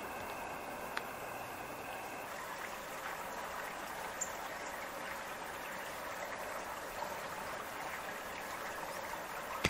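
Steady sound of running, trickling water, with a few faint clicks.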